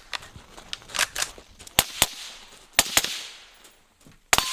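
Gunfire at a shooting range: a string of sharp shots at uneven spacing, each with a short echo, the loudest pairs about two and three seconds in.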